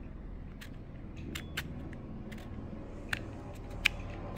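Sharp, separate clicks from the thumb slider of a small M.2 SSD enclosure as its USB-C connector is pushed out and pulled back in, the slide latching at each end. The loudest click comes near the end.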